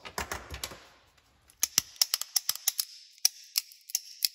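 Benchmade Bugout folding knife flicked open and shut over and over as a fidget, its lock snapping each time: a quick, uneven run of sharp clicks starting a little over a second in.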